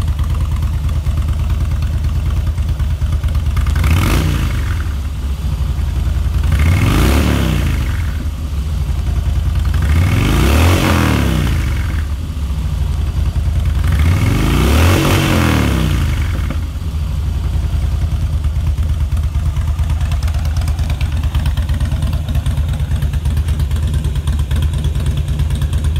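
2013 Harley-Davidson Softail Slim's 1690 cc V-twin through Vance & Hines Straightshots slip-on exhaust, idling and blipped four times in neutral, about three to four seconds apart, each rev climbing and falling back, the later ones bigger. After the last rev, about sixteen seconds in, it settles back to a steady idle.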